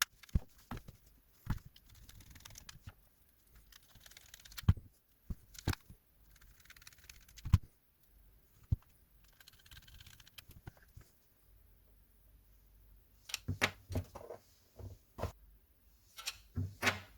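Plastic parts of a PS5 DualSense controller being handled and fitted back together: scattered sharp clicks and knocks with soft scraping in between, then a quick run of clicks near the end as the shell halves are pressed shut.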